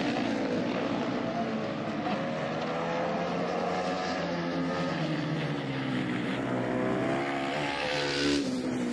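Ice speedway motorcycles' single-cylinder engines running hard around the track, their pitch rising and falling as several bikes rev through the turns.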